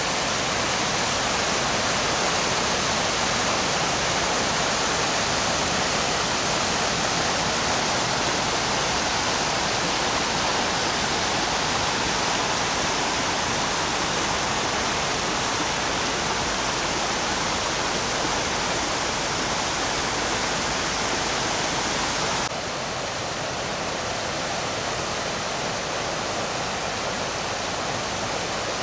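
Seasonal stream in full flow, rushing over small rocky falls and cascades: a steady wash of white water. About two-thirds of the way through it drops slightly in level and turns a little duller.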